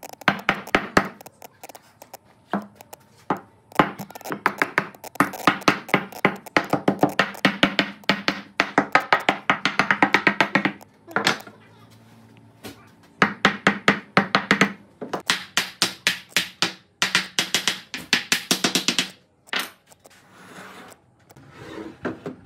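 Rapid wooden knocking, a hand-held wooden block striking the wooden table, about five knocks a second in runs of several seconds with short pauses.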